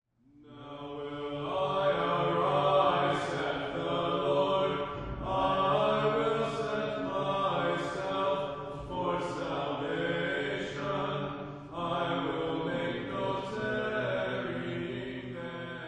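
Sung chant: slow, sustained vocal phrases with short breaks every few seconds. It fades in at the start and fades out near the end.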